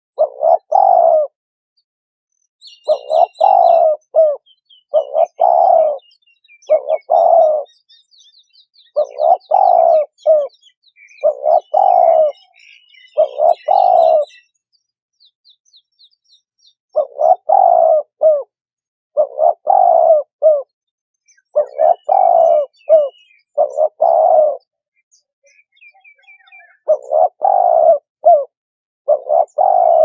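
Turtle dove cooing: a loud string of deep coo phrases, one every second or two, with pauses about two seconds in, around halfway and near the end. Faint high chirps of small birds can be heard behind it at times.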